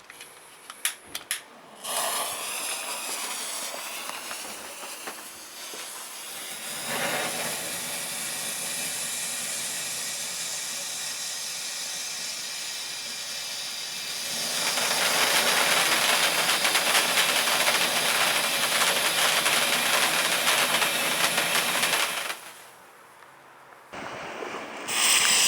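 Firework fountain burning: a few sharp pops near the start, then a steady hissing spray of sparks that gets stronger twice and cuts off a few seconds before the end. A new hissing spray starts just at the end.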